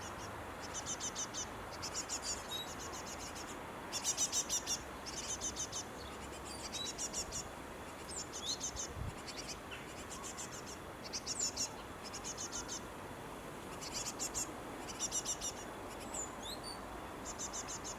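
Fledgling songbirds giving begging calls in a tree: repeated short trains of rapid, very high chirps, coming in bouts with brief pauses, with a few thin single notes in between.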